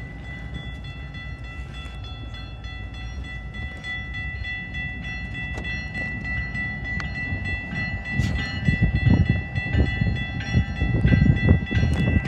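A BNSF GE Evolution Series diesel locomotive approaching with an autorack train: a low engine and rail rumble that grows louder, most of all from about eight seconds in, with a thin steady high-pitched tone above it.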